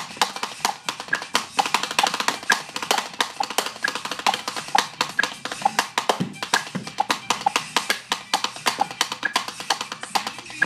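Wooden drumsticks beating a fast, busy rhythm on a hard tabletop. A music track with a repeating short melodic note plays along.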